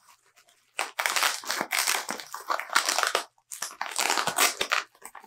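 Packing tape being peeled off a bubble-wrapped package, the tape and plastic wrap crackling and crinkling in two long spells, the second starting a little after the middle.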